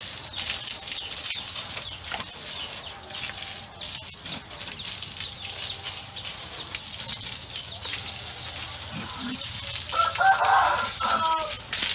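Hose water spraying onto pigs and a wet concrete pen floor: a steady hiss with small splashes. About ten seconds in, a pitched call lasting about a second and a half rises over the spray and is the loudest sound.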